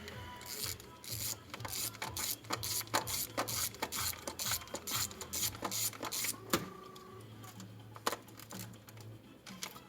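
Irregular metallic clicks and clinks of hand tools and parts being handled on the open engine. They come thick and fast for about six seconds, then only a few scattered ones, over a low hum that comes and goes.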